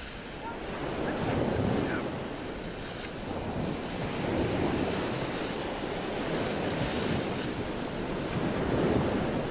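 Wind rushing over the microphone with sea water sloshing and washing around the boat, swelling and easing in slow surges every two to three seconds.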